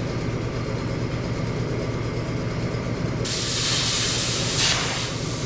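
A steady low mechanical hum, joined about three seconds in by a loud, steady hiss that starts abruptly.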